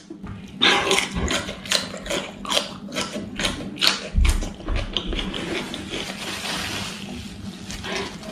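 Raw cucumber being bitten and chewed close to the microphone: a quick run of sharp, crisp crunches for the first few seconds, then softer, steadier chewing noise.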